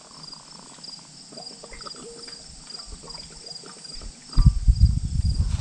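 Insects chirping steadily in a fast pulsing rhythm. About four seconds in, wind starts buffeting the microphone with a low rumble that drowns out everything else.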